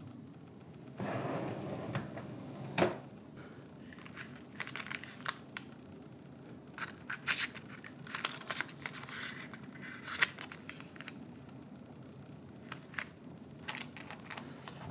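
Crinkling of foil sachets and clear plastic amenity packets being handled in a wooden drawer, in scattered short crackles. Early on, a scraping noise about a second long ends in a sharp knock.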